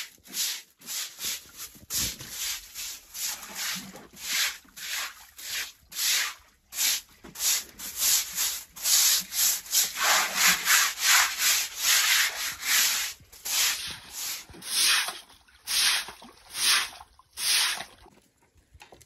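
A stiff stick broom scrubbing a wet concrete floor in quick back-and-forth strokes, about two a second, stopping shortly before the end. Around the middle, water splashes onto the floor among the strokes.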